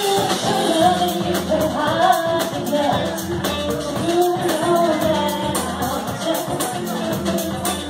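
A woman singing live with a small band of electric guitar, drum kit and electric keyboard, over a steady beat on the cymbals.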